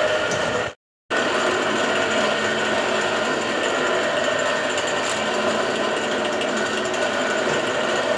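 Bench drill press running with a steady motor whine while drilling into a truck clutch plate. The sound cuts out completely for a moment about a second in.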